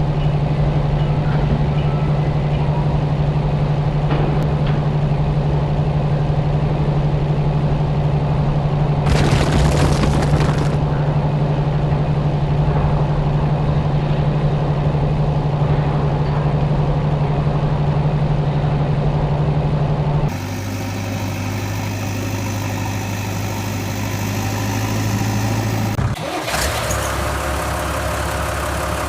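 Heavy machine engine running steadily at a constant low hum. A hiss lasts about a second and a half near ten seconds in, and the engine tone switches abruptly to a lower hum about twenty seconds in and changes again near the end.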